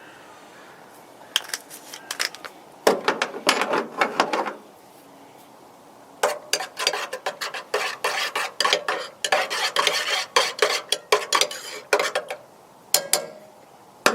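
Metal tent stake, used as a spoon, clinking against a cup in rapid runs of sharp clicks as creamer is stirred into coffee.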